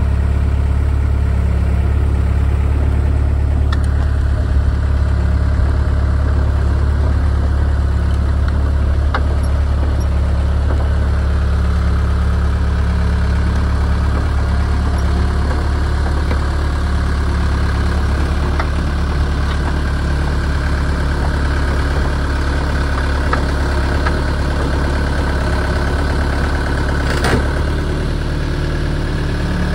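Caterpillar 307 mini excavator's diesel engine running steadily while the machine lifts and carries a large uprooted stump in its bucket and thumb, with a few faint ticks and one sharper tick near the end.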